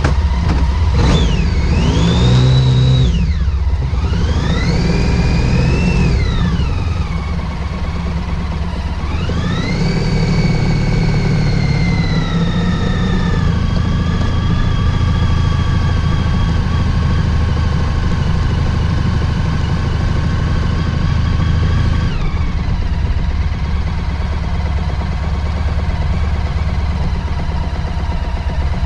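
Motorcycle engine pulling away and accelerating through the gears: its pitch climbs and drops back at each shift three times, then holds steady while cruising, and falls as the throttle eases off about three-quarters of the way through.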